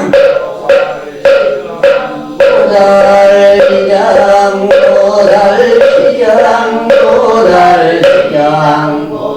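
Korean Buddhist liturgical chanting. For the first two seconds or so a wooden percussion instrument, the moktak (wooden fish), is struck at an even beat of a little under two knocks a second beneath a held chanted note. The knocks then stop and the chant goes on as a melodic line.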